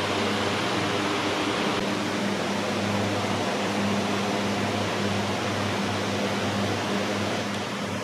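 Steady background hiss with a low, even hum underneath, like a running fan or pump; no distinct events stand out.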